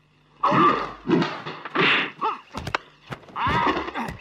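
Kung-fu film style fight sound effects: a man's shouted, wordless martial-arts cries, with a few sharp punch-like hits about two and a half to three seconds in.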